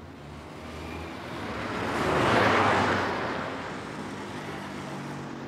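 A car driving past on the road, growing louder to a peak about halfway through and then fading away.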